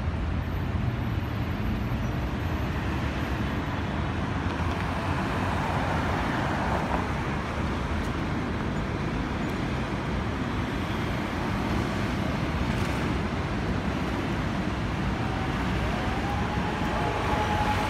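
Steady city road traffic noise, with engines and tyres making an even rumble. A faint steady tone comes in near the end.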